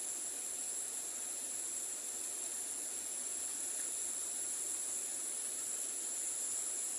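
Steady high-pitched chorus of insects, two unbroken shrill tones over a soft hiss of outdoor ambience.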